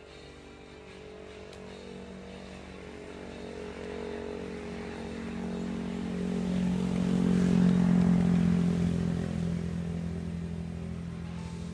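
A motorcycle passing by on the road: its engine grows steadily louder, is loudest about eight seconds in, then fades away.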